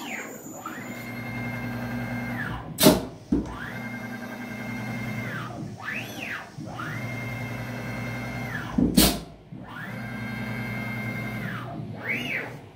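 CNC router axis motors whining through repeated moves during an automatic tool change: each move rises in pitch, holds a steady whine and falls away, four long moves and two short ones. Twice, about six seconds apart, a short sharp burst comes from the air-operated spindle releasing or clamping a tool holder.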